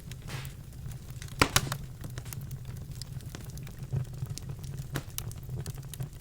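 Birch logs burning in a fireplace, crackling with irregular sharp snaps, the loudest pair about a second and a half in, over a steady low hum.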